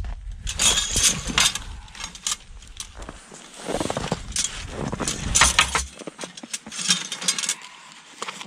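Irregular crunching of snow and rustling of spruce branches, with sharp clicks and scrapes, as a snow-covered barrel cubby trap set is handled by hand.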